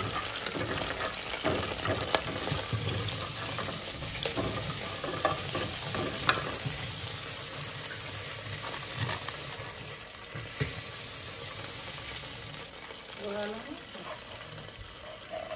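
Curry leaves sizzling in hot mustard oil in a small pan, with occasional short knocks and scrapes as they are stirred. The sizzle falls off somewhat near the end.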